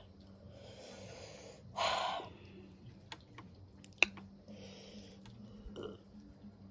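A person breathing audibly through the nose while eating, with one louder breath about two seconds in. A single sharp click about four seconds in.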